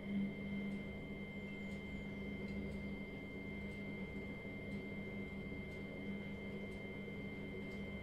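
Miele front-loading washing machine in its wash cycle, the drum tumbling the laundry through the water: a steady motor hum and low rumble with a faint high whine.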